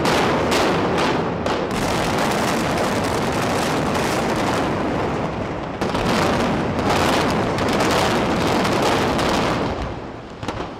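Explosive demolition charges firing in sequence in a reinforced concrete tower: sharp blasts come quickly at first, then run together into a continuous crackling din with further reports, which fades about ten seconds in as the tower goes over.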